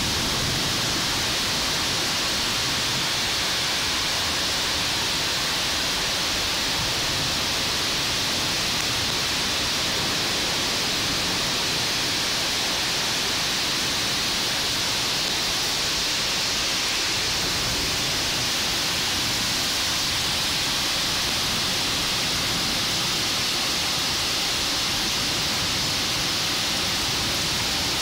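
Heavy downpour: a steady hiss of rain falling on pavement, trees and parked cars.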